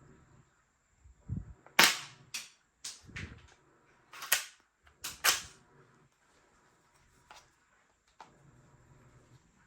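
Spring-powered toy gun firing: about six sharp snaps between roughly two and five and a half seconds in, with a few duller knocks among them.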